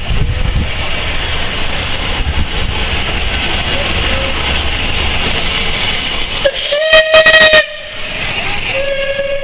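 Southern Railway Merchant Navy class Pacific steam locomotive 35028 Clan Line running through a station at the head of its train, with a steady rumble as it approaches. About seven seconds in its steam whistle sounds, very loud and distorting, for just under a second, then sounds again near the end and holds on.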